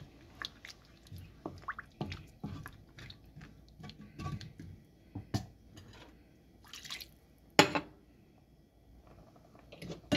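A spatula stirring thin curry gravy in a nonstick frying pan: wet squelching with light scrapes and clicks against the pan, then one sharp knock about three-quarters of the way through.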